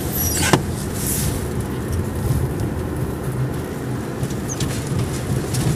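Vehicle engine and road noise heard from inside the cab while driving over a snowy road: a steady low rumble, with one short knock about half a second in.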